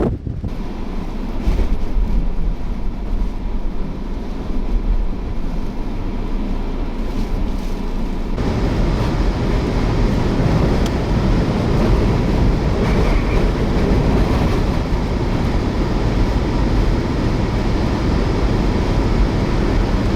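Strong wind blasting across the microphone. About eight seconds in it changes to a vehicle driving through the gale, a heavier, steady low rumble of road and engine mixed with the wind.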